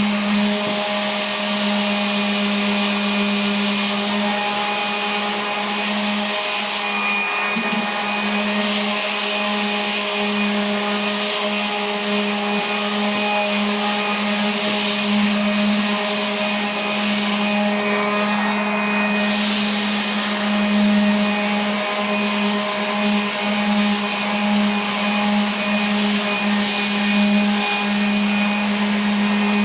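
Electric sander running against a sand-textured wall, a steady motor hum under a loud gritty rasp of sandpaper on sand grains that are coarser than the paper. The rasp thins out briefly twice, about seven and eighteen seconds in.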